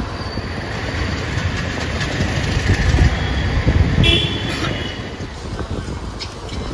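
Road traffic noise with a continuous low rumble, and a vehicle horn sounding briefly about four seconds in.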